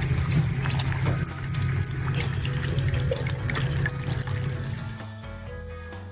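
Tap water running into a sink, with background music; the rush of water fades about five seconds in.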